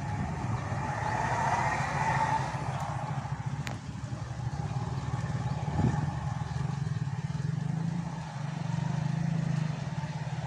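Heavy diesel vehicles passing slowly on the road: a low engine drone with tyre noise, swelling as one goes by about a second or two in and again near the end.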